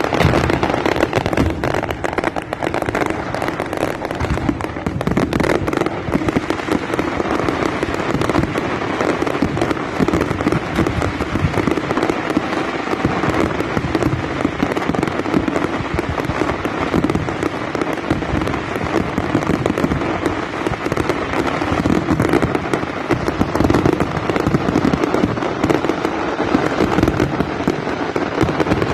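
Fireworks going off without a break: a dense stream of rapid pops, steady in loudness throughout.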